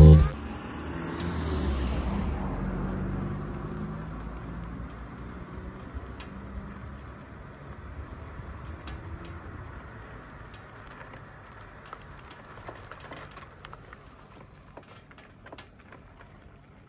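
A car passing: engine and tyre noise swelling over the first couple of seconds, then slowly fading away. Faint scattered clicks and rattles follow.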